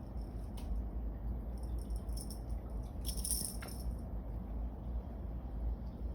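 Cat teaser wand toy rattling in short shakes, the loudest about three seconds in, over a steady low rumble.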